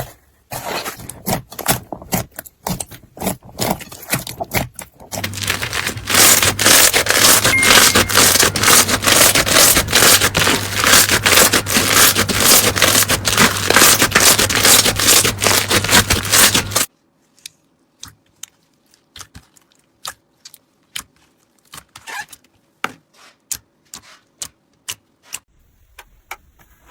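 Slime being handled, giving a run of crackling clicks and pops. They come at a moderate pace at first, turn into a dense, loud crackle about five seconds in, stop suddenly about two-thirds of the way through, and then give way to scattered, quieter clicks.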